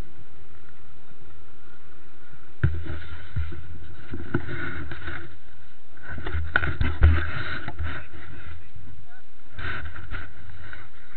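Small boat moving on calm lake water: a steady low hum with several sharp knocks, bunched in the middle.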